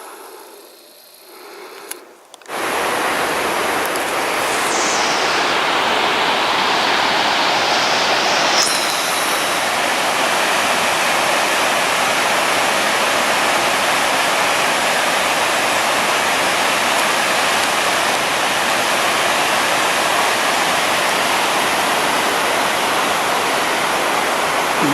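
Loud, steady rush of a waterfall, starting abruptly about two and a half seconds in after a quieter stretch.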